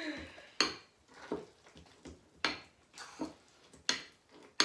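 A spoon clinking against a mixing bowl as potato is mashed and stirred: about six sharp clinks, roughly one a second.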